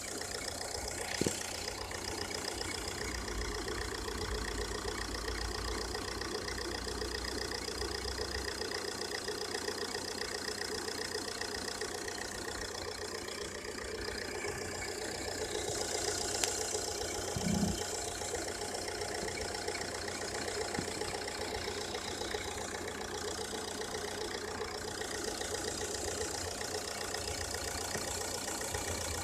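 Ford S-Max engine idling steadily under the open bonnet, its alternator drive belt running; the belt has been whistling on the cold engine. A short click comes about a second in, and a brief hiss about halfway through.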